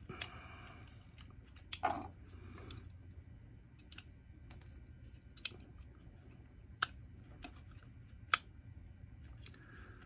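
Small, sharp plastic clicks and taps, scattered and irregular, as the circuit board and white plastic housing of a Ring alarm contact sensor are handled and lined up, over a faint low steady hum.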